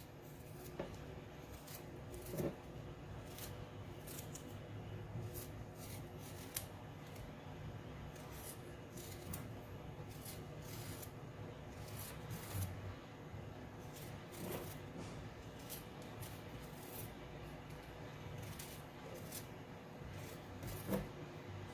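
Fresh ginger being peeled by hand: faint, irregular short scrapes and clicks as the skin is pared off, over a faint low hum.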